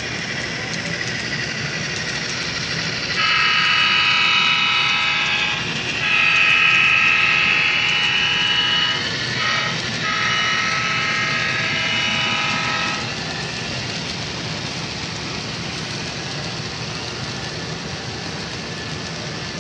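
Sound-equipped HO scale model diesel locomotive blowing its chime horn in three long blasts over a steady rumble of the train running by. The rumble carries on after the horn stops.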